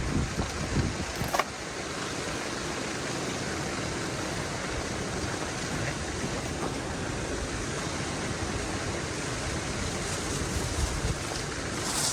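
Strong wind blowing steadily as a continuous rushing noise, with low gusts buffeting the microphone in the first second or so.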